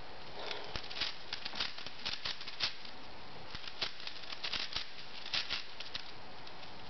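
V-Cube 6 (6x6 puzzle cube) being turned by hand: irregular runs of short plastic clicks and clatters as its layers are turned, over a steady hiss.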